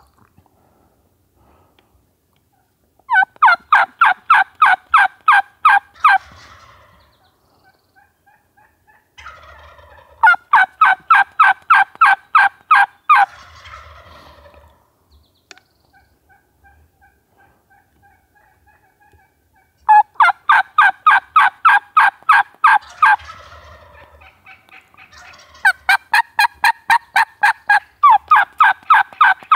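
Turkey yelping, loud and close: four long series of evenly spaced yelps, about four a second and each lasting about three seconds, with softer, fainter notes in the gaps between them.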